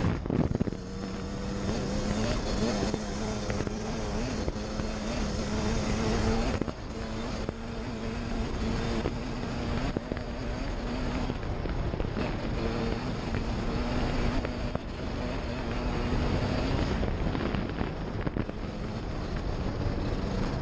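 Suzuki RM125 two-stroke single-cylinder dirt bike engine running at a steady cruise, its pitch stepping up and down slightly a few times, with wind rushing over the microphone.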